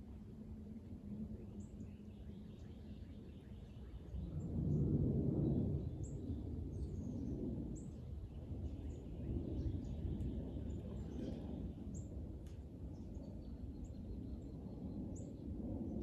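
Outdoor ambience of a bird chirping: short, high notes repeated every second or two. Underneath is a low rushing noise that swells and fades several times and is loudest about four seconds in.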